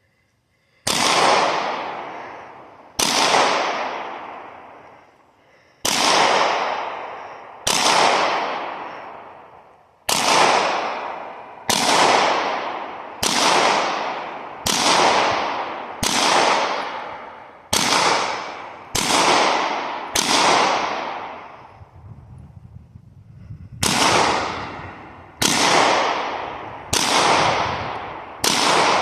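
Pistol shots fired one at a time in slow aimed fire, about sixteen in all, each a sharp crack with a long echoing decay, spaced roughly one to two and a half seconds apart, with a short pause about three quarters of the way through.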